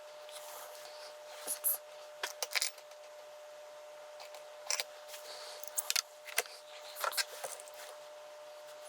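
Small metal clicks and jingles of keys, lock cylinders and pins being handled during rekeying, coming irregularly in quick clusters over a faint steady hum.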